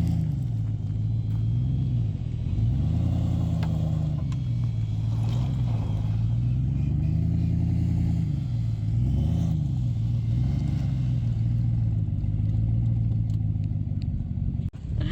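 Vehicle engine under load, revving up and dropping back again and again, while a stuck van is being pulled free of deep stones.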